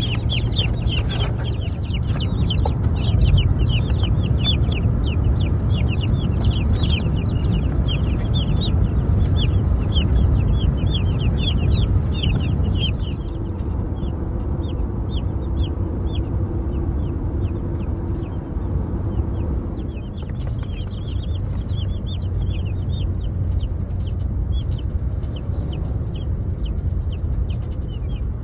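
A box of baby meat-bird chicks peeping constantly, many short high chirps overlapping, over the low steady rumble of a car on the road.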